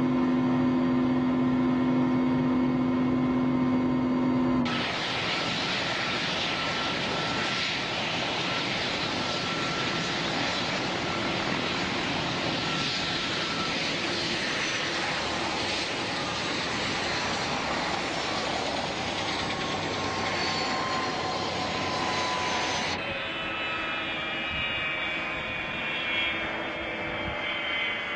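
Shadow microlight's two-stroke engine and propeller droning in flight: a steady pitched drone that abruptly gives way to a broad rushing noise with faint slowly falling tones about five seconds in, then switches back to a clearer drone near the end.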